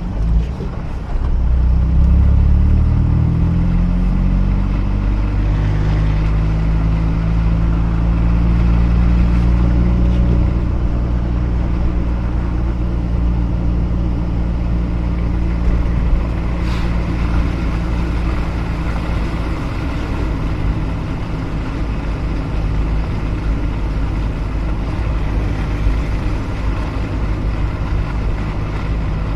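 Mazda RX-8's two-rotor rotary engine pulling as the car accelerates over the first few seconds, its pitch rising, then running at a steady pitch while cruising.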